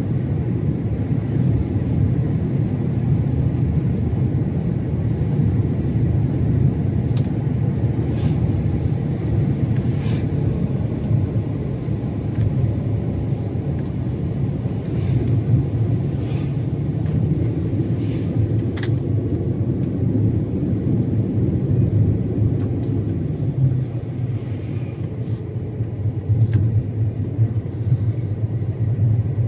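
Iveco Stralis 570 XP truck on the move: its Cursor 13 straight-six diesel and the road noise make a steady low rumble, with a few short clicks scattered through.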